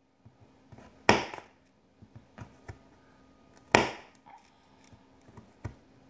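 Knife chopping through a raw carrot on a paper plate: two loud, sharp snaps, about a second in and again about two and a half seconds later, with a few small ticks between.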